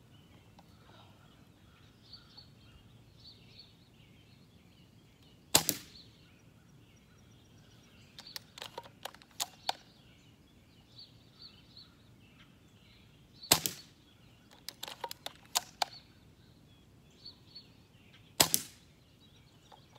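Airsoft sniper rifle fired three times, each shot a single sharp crack, about six seconds in, near the middle and near the end. Between shots, runs of lighter clicks from the rifle's bolt being worked to cock and load it.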